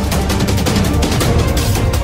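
Background music with a strong, steady beat and heavy bass.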